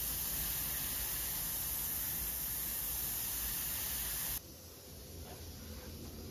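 Airbrush hissing steadily as it sprays paint. The hiss cuts off abruptly a little over four seconds in, leaving a much fainter hiss.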